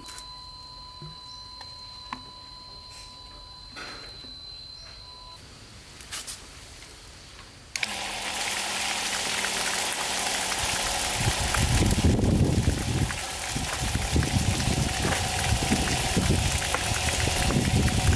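Homemade PVC water pump driven by a 775 DC motor switching on about eight seconds in. It runs with a hum and a loud rush of water as it throws a strong jet, and from a few seconds later the water splashes down heavily. The sound cuts off suddenly at the end.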